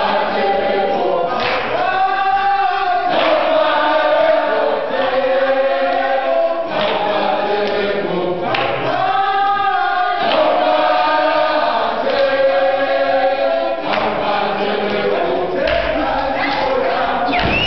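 A group of students singing a political song together as a choir, many voices joined in sustained phrases that repeat.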